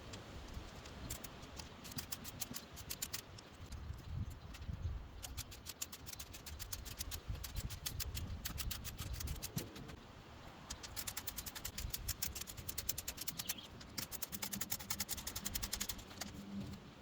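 Runs of rapid clicking, each lasting a few seconds and stopping and starting again several times, from tightening bolts while putting together patio furniture, with low handling noise underneath.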